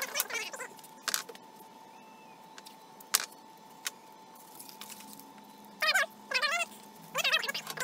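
Blue painter's tape pulled off the roll, squealing in two short, wavering bursts near the end, after a couple of sharp clicks earlier on.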